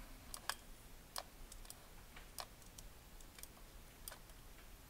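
Faint, irregular clicks of a computer keyboard and mouse, about ten scattered sharp taps.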